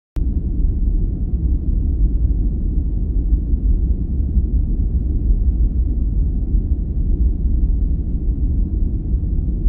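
A steady, deep, pitchless noise that cuts in suddenly just after the start and runs on at an even level.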